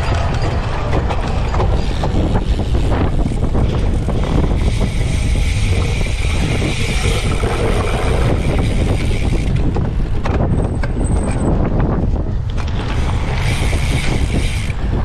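Wind buffeting the microphone, mixed with the rattle and tyre noise of a cyclocross bike ridden hard over rough ground. A higher steady hiss comes in for several seconds around the middle and again near the end.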